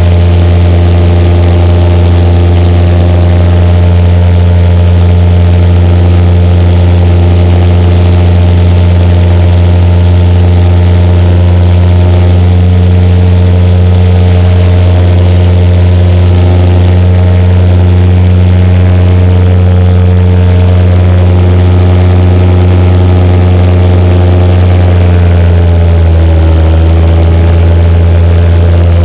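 Paramotor engine and propeller running steadily at cruise, a loud, even drone close to the microphone; a little before the end the pitch drops slightly as the throttle eases.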